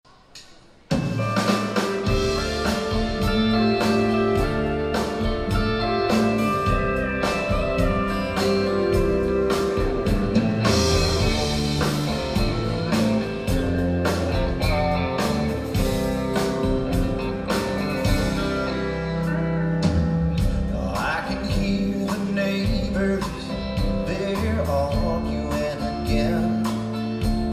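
Live country band playing: electric and acoustic guitars, drums and keyboard, starting suddenly about a second in.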